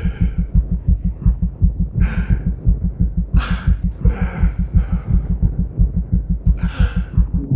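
Rapid, pounding heartbeat sound effect of fast, even low thumps, about four to five a second: a racing heart in fear. A few short, sharp breaths cut through over it.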